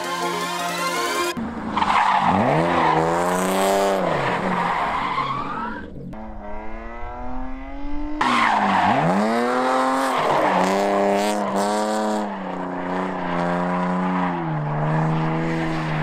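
About a second of music, then a BMW E36 3 Series sedan drifting: the engine revs hard, its pitch dropping sharply and climbing again several times with the throttle, over tyre squeal.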